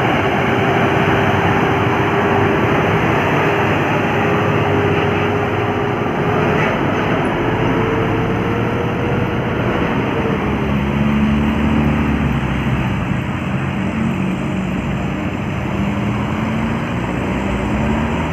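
Heavy road vehicle's engine labouring up a grade: a steady deep rumble with a droning whine that climbs slowly, drops to a lower pitch about ten seconds in, and rises again near the end.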